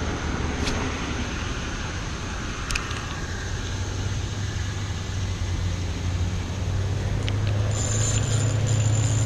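Road traffic: a steady rush of vehicle noise with a low engine hum that grows louder toward the end as a vehicle passes.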